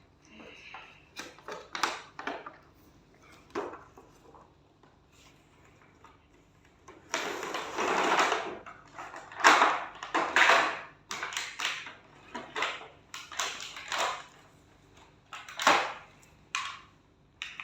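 Toy packaging being opened by hand: irregular rustling, tearing and clicks, with the loudest bursts from about seven to eleven seconds in.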